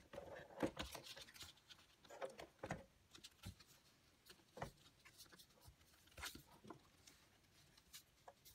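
Faint, scattered rustles and light taps of paper and card being handled, with a few short clicks about two thirds of a second in, near the middle and past six seconds.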